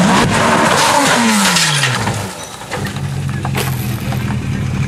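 Rally car crashing: a loud skidding, scraping din with the engine note dropping sharply. After that the engine runs steadily at low revs.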